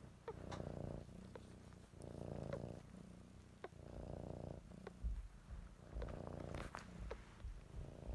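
A cat purring, swelling and easing in slow waves with each breath about every two seconds, with a few soft clicks.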